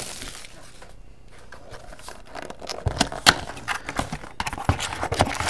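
Trading card packs and cards being handled: scattered sharp clicks, taps and light rustling, quiet at first and busiest in the second half.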